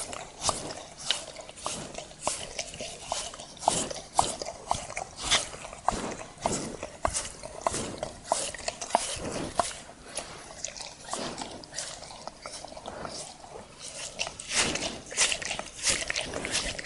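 A dog licking a person's hand: a run of quick wet tongue laps and smacks, busier near the end.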